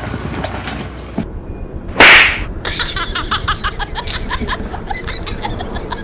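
A loud, short swoosh sound effect about two seconds in. It is followed by a fast, even run of short pulses, about six or seven a second.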